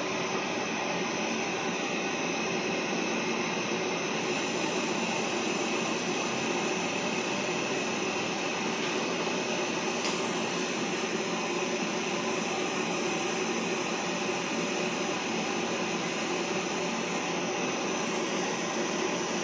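Pet grooming dryer blowing air at a dog's wet coat, a steady even rush of noise with no breaks.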